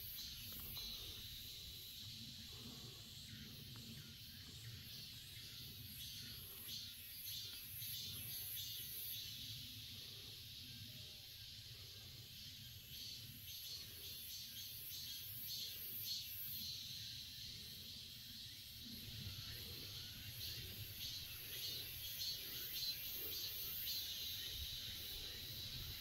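Insects shrilling in a steady high band that pulses in rapid waves, with a low wind rumble on the microphone.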